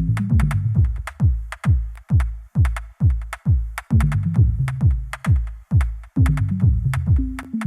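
Electronic background music with a steady, fast kick-drum beat, ticking hi-hats and a bass line that steps down in pitch.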